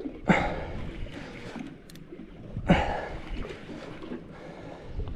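Wind and water noise at the side of a small boat, broken by two sudden loud swooshes about two and a half seconds apart.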